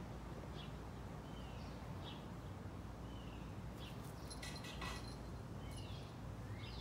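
Small birds chirping: short, high calls and falling whistles about every second, with a brief busier burst of calls about halfway through, over a steady low background rumble.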